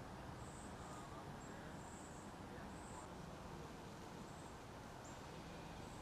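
Faint outdoor ambience: a low steady rumble with short, high-pitched chirps repeating irregularly about once a second.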